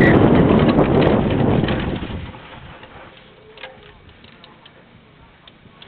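Rushing wind and tyre noise from a downhill mountain bike rolling over dirt, fading out about two seconds in as the bike slows to a stop, leaving only a few faint, scattered ticks.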